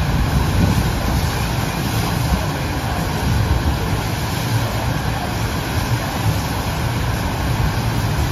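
FlowRider wave simulator's pumped sheet of water rushing steadily up the surfing surface, an unbroken rushing noise with a heavy low rumble.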